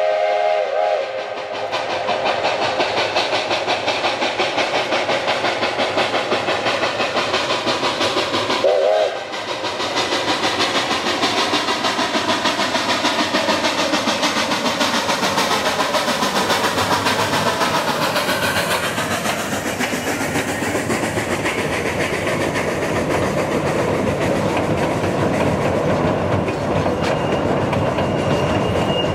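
Narrow-gauge steam locomotive hauling a passenger train. Its steam whistle ends a blast in the first second and gives one short toot about nine seconds in, over the steady beat of the exhaust and the clickety-clack of wheels on rail joints. Near the end a thin, high squeal from the passing cars' wheels comes in.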